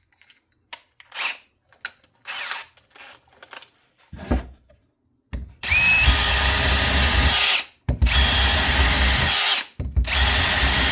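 A few light handling clicks and knocks, then a screw gun drilling a freshly resharpened drill bit into wood. The motor spins up with a rising whine and runs three times, about two seconds each, with short pauses between.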